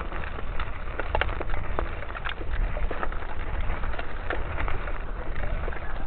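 Mountain bike tyres rolling over a loose gravel track, small stones crackling and popping under the wheels, over a steady low rumble.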